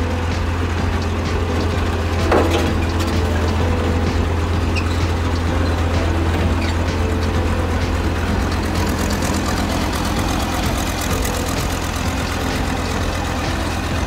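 Diesel engine of a Sakai single-drum road roller running steadily at close range, with a deep, even low hum under it. A brief sharp noise stands out about two seconds in.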